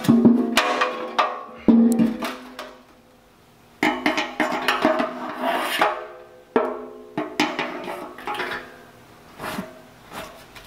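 Metal fuel tank off a Ford 1910 tractor being tipped, knocked and set down on a concrete floor: a series of hollow knocks and clatters, each ringing briefly, loudest in the first two seconds.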